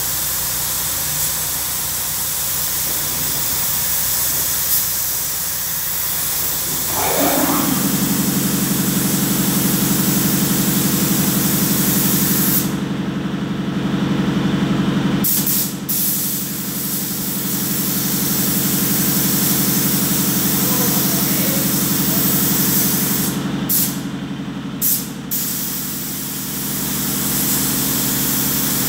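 Compressed-air paint spray gun hissing as it sprays, the hiss stopping twice for a second or two when the trigger is released. About seven seconds in, a steady low motor hum starts up and runs underneath.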